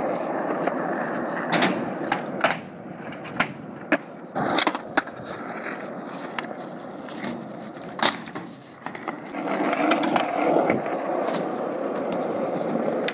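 Skateboard wheels rolling over a concrete rink surface, a steady rolling rumble broken by sharp clacks of the board now and then. The rumble gets louder about ten seconds in.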